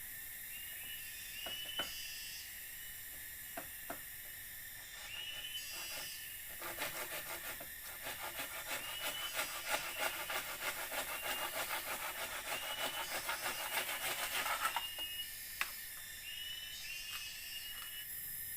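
Rhythmic scraping strokes on wood, like a hand saw or rasp working, starting about six seconds in and stopping about fifteen seconds in. Underneath is a steady high forest hiss with repeated short chirps, and there are a few sharp clicks before the strokes start.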